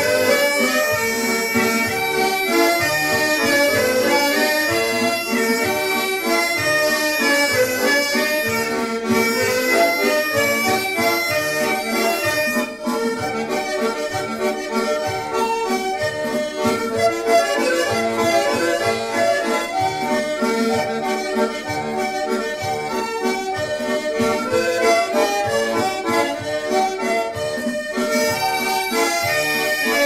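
Instrumental background music playing continuously at a steady level, with notes changing throughout.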